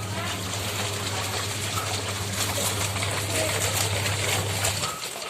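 AQUA QW-1050 XT washing machine in its wash cycle: a steady motor hum with water churning in the tub. The motor and churning stop briefly near the end, then start again.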